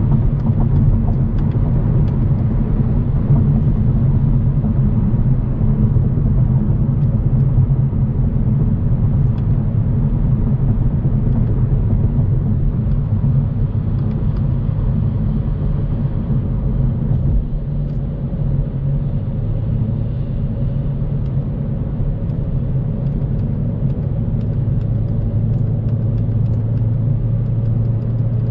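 Car driving at highway speed: a steady low rumble of road and engine noise with a constant low drone.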